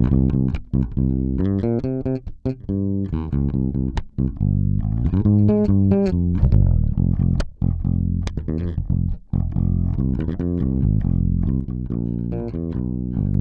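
A bass guitar line of plucked notes, each with a sharp attack and strong low end, played back through a Great River PWM-501 compressor while its ratio and attack settings are being turned.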